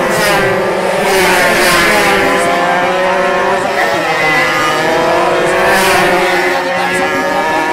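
Several 125 cc two-stroke underbone racing motorcycles at full throttle. The engine pitch rises and falls back several times as the riders shift gears and go through corners.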